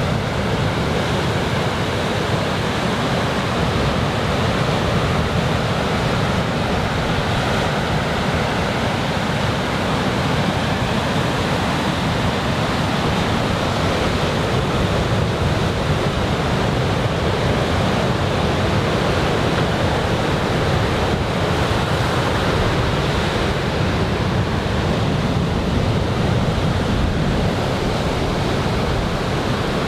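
Heavy ocean surf breaking and washing onto the beach in a steady, continuous rush, driven by a typhoon swell.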